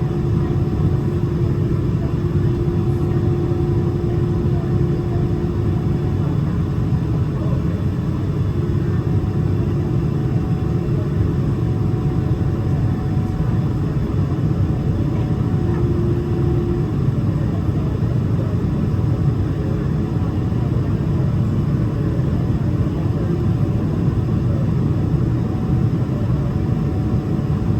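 Boeing 777-300ER's GE90 engines heard inside the cabin as a loud, steady low rumble, with a faint hum that comes and goes.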